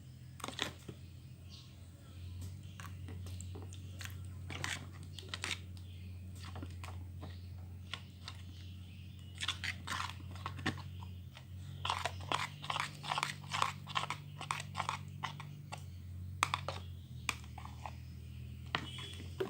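Homemade glue slime being stirred as it thickens with the activator: sticky, wet clicks and squelches in irregular runs, busiest about halfway through and in the second half, over a steady low hum.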